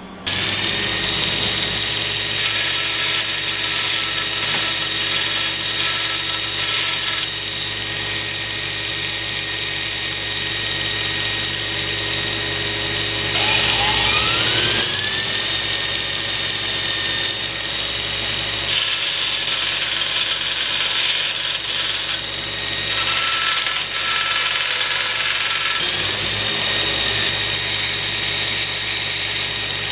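Kalamazoo 2FS72M 2x72 belt grinder running on its half-horsepower single-phase motor, a steady whine with the belt's hum. The pitch rises like a spin-up about halfway through and again near the end.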